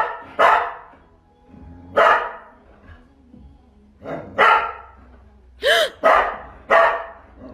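A dog barking: about seven short, loud barks at uneven intervals, coming closer together in the second half.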